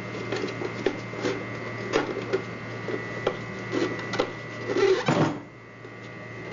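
Plastic parts of a portable garment steam iron being handled and fitted together: irregular light clicks and knocks, with a louder clatter about five seconds in.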